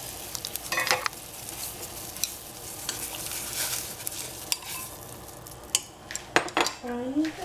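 Wooden chopsticks stirring beaten egg into boiling water in a stainless steel saucepan, over the steady bubbling hiss of the boil. The chopsticks click against the pan about a second in and again several times near the end.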